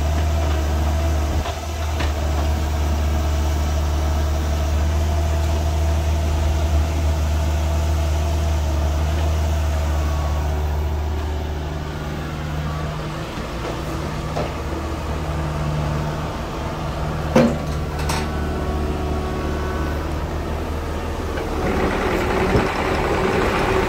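Kubota U55-4 mini excavator's diesel engine running steadily while the boom, bucket and slew are worked, its note shifting partway through. Two sharp clicks come close together in the second half, and the sound grows louder and noisier near the end.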